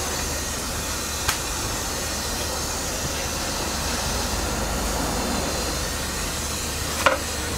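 Steady background noise with a low rumble and a hiss, broken by two short sharp clicks, one about a second in and one near the end.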